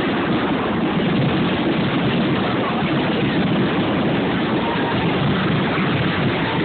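A large fireworks display going off, with shells bursting so thickly that they merge into one continuous, loud rumble. It is heard through a phone's microphone, which muffles it.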